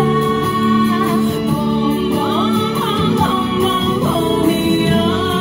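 A woman singing into a handheld microphone, amplified through PA loudspeakers over instrumental accompaniment.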